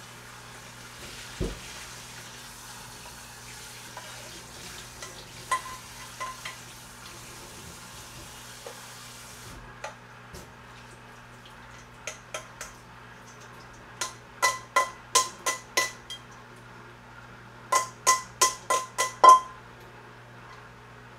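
Cooked noodles being rinsed under cold running water, the flow stopping about halfway through. Then sharp, ringing metal knocks in two quick runs of five or six, the metal cookware holding the noodles being knocked to shake the water out; the last knock is the loudest.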